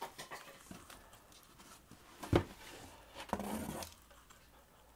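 Wooden board being lifted out of a cardboard box: light rustling, one sharp knock a little over two seconds in, then a brief scrape of wood against cardboard about a second later.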